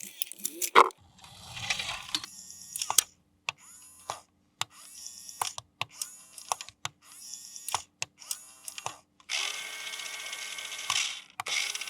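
Close-up handling of plastic toy parts and packaging: sharp plastic clicks and taps between short crinkling rustles, with a longer rasping stretch of about a second and a half near the end.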